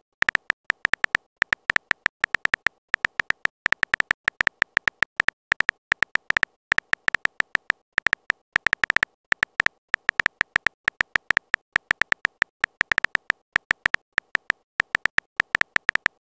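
Phone keyboard typing clicks from a texting-story app: rapid, irregular taps, several a second, with short pauses between bursts as a message is typed out.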